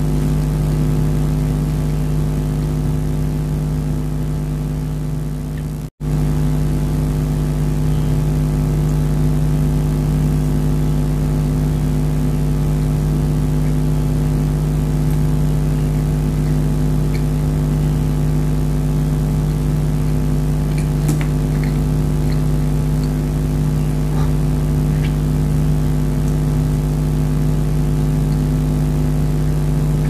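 Loud, steady machine hum made of several fixed tones over a low drone, dropping out for an instant about six seconds in. A few faint clicks sound later on.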